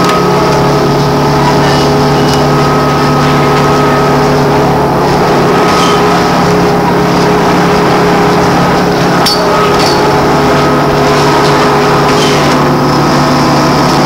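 Inside a MAN articulated electric trolleybus: a steady electric hum and whine from the drive, several tones held evenly over a bed of running noise. A couple of short clicks or rattles come about two thirds of the way through.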